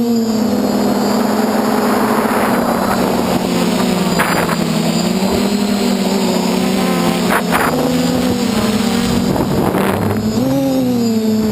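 DJI F450 quadcopter's four electric motors and 8-inch propellers droning steadily, the pitch wavering up and down as the throttle changes. A rushing air noise swells early on, and a few short crackles come through the onboard camera's microphone.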